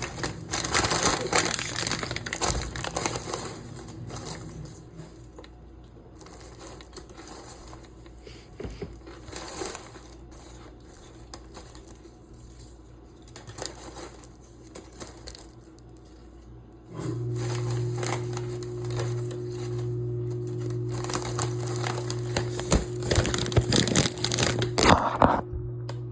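Crinkling and crackling handling noise in irregular bursts, heaviest in the first few seconds and again near the end. About 17 s in, a steady low hum starts suddenly and continues.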